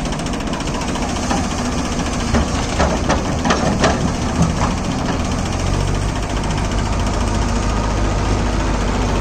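Diesel engines of a Hyundai 210 crawler excavator and a tractor running steadily. From about two and a half to four and a half seconds in comes a run of knocks and clatters as the excavator's bucket dumps soil and clods into the steel tractor trolley. The low engine hum grows stronger a little after five seconds in.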